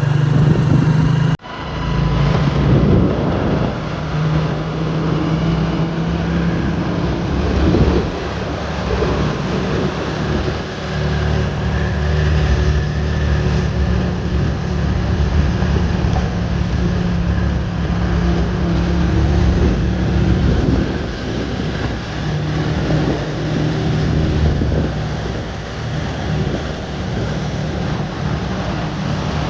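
A vehicle's engine running steadily as it travels, with wind noise on the microphone.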